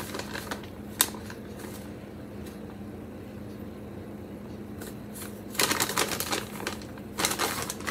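Plastic zip bag of buttermilk powder crinkling as it is handled, in two spells in the second half, after a single light click about a second in as the powder is scooped into the pitcher.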